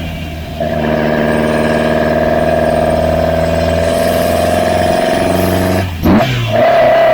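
Toyota 4A-GE 16-valve four-cylinder with individual throttle bodies running at a steady high pitch. About six seconds in, the note breaks off sharply with a short upward sweep, then holds steady again, slightly louder.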